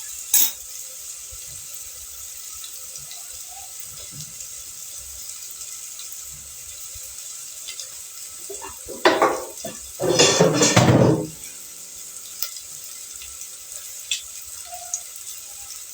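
Onion frying in ghee in a pan with a quiet steady sizzle, broken about nine to eleven seconds in by two loud bursts of water running from a kitchen tap.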